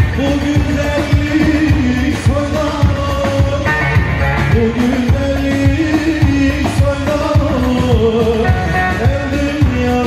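Live Turkish folk dance music on a PA system: a male voice sings a held, winding melody into a microphone over an amplified saz and a steady drum beat.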